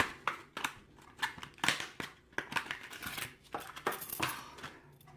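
Hands handling and unpacking a brass padlock: an irregular run of sharp clicks and short rustles of packaging.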